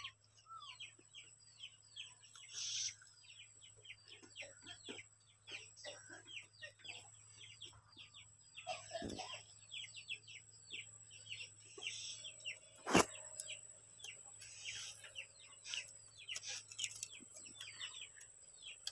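Birds and chickens: a steady run of many short, falling chirps with chickens clucking. A sharp click stands out about two-thirds of the way through.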